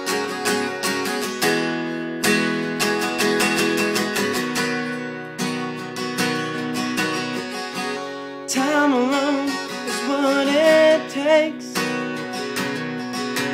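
Acoustic guitar with a capo, strummed in a steady rhythm through an instrumental break in a slow country song. Past the middle, a voice hums a short wordless line over the strumming.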